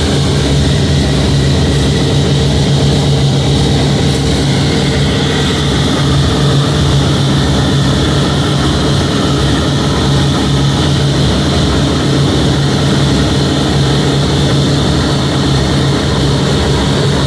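The B-17 bomber's Wright R-1820 Cyclone nine-cylinder radial engines running with a steady, loud drone, heard from inside the aircraft while it is on the ground. The pitch holds level throughout, with no run-up to takeoff power.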